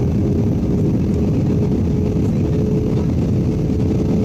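Airliner cabin noise on the landing approach: the steady roar of the jet engines and airflow past the fuselage, with a steady hum running through it.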